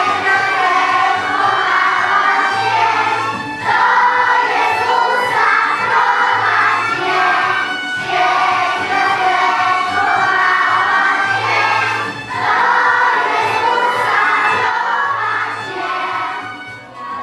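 A group of children and women singing a Christmas song together, accompanied by violin over a backing track with a rhythmic bass line. It fades out near the end.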